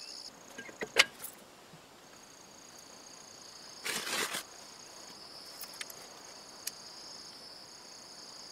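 A new brake drum clanks against the rear brake shoes as it is tried on the hub, with a sharp knock about a second in. Near the middle comes a short scrape as it is pulled back off, because it is too tight over the unworn shoes. Crickets chirp steadily throughout.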